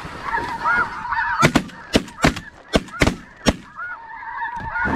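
A rapid volley of about eight shotgun shots from several hunters, packed into about two seconds starting a second and a half in, over continuous goose honking.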